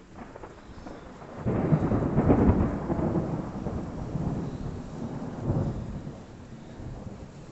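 Thunder: a sudden loud clap about a second and a half in, then a long rolling rumble that swells again a few times and slowly dies away.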